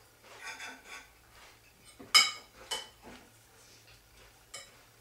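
Metal cutlery clinking and scraping against a cereal bowl and a plate while eating: a few sharp, briefly ringing clinks, the loudest about two seconds in.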